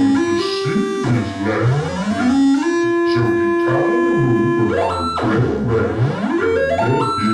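Experimental electronic noise music: synthesizer-like tones held and jumping in steps, with repeated rising pitch sweeps over a low pulsing hum.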